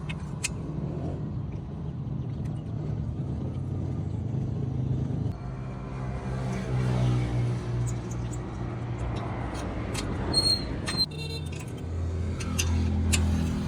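Motor vehicle engine running with a steady low hum. Its pitch shifts a couple of times, once about five seconds in and again near eleven seconds. Scattered sharp clicks and taps sound over it.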